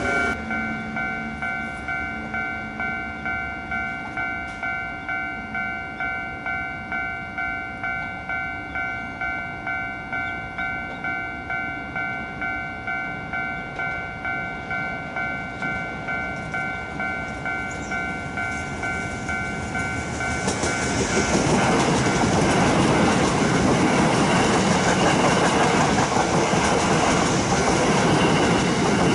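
A bell-like warning signal dings about twice a second, such as a level-crossing bell ringing ahead of a train. About twenty seconds in, an Osaka Metro 66 series electric multiple unit passes close by, and the noise of its wheels on the rails rises and drowns out the bell.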